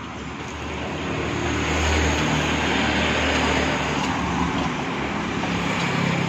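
A motor vehicle's engine running: a steady low hum that swells about one to two seconds in and then holds.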